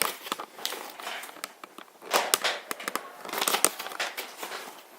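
Irregular crinkling and rustling as more flour is added to a runny flour-and-water slime mix, with louder bursts about two and three and a half seconds in.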